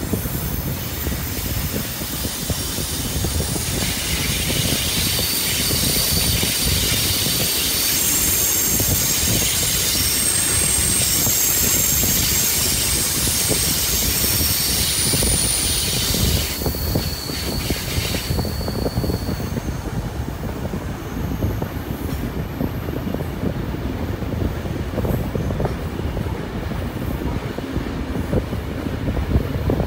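Railway carriage rolling on the rails with a steady rumble, its wheels squealing in several high, shifting tones as the train rounds a curve. The squeal is loudest in the middle and dies away about two-thirds of the way through, leaving only the rumble.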